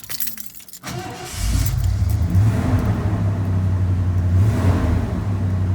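Engine of a 1988 Ford F-150 pickup running, coming in about a second in and picking up in revs, then holding a steady, loud drone with small rises and falls.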